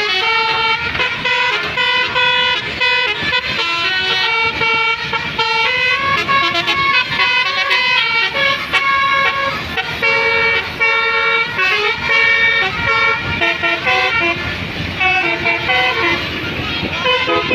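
Bus telolet multi-tone air horns (Basuri) playing a continuous melody, several horn notes at once stepping from pitch to pitch about every half second.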